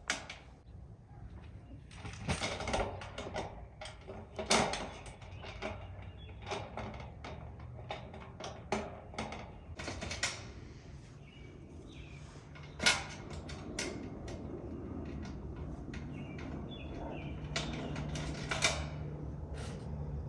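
Irregular clicks, knocks and clanks of thin galvanized sheet-metal garden-bed panels and hardware being handled and fitted together, with one sharper knock about two-thirds of the way through. A low steady hum comes in underneath about twelve seconds in.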